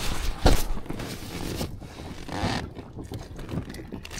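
Handling noise in a small fishing boat: a sharp knock about half a second in and rustling over a constant wash of wind and water.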